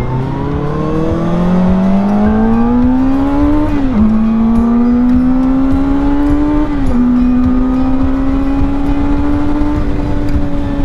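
Benelli 600i's inline-four engine accelerating hard, its pitch climbing and dropping sharply at two upshifts about four and seven seconds in, then holding nearly steady at cruising speed, with wind and road rush underneath.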